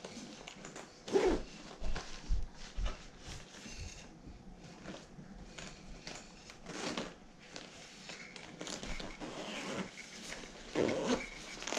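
Handling noise from opening a drone's shoulder bag and its packaging: irregular rustling and scraping, with louder bursts about a second in, around seven seconds and near the end.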